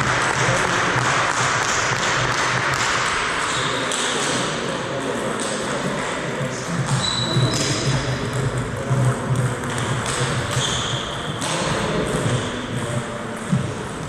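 Sports-hall background noise with scattered sharp clicks typical of table tennis balls striking a table or the floor, and a few brief high squeaks.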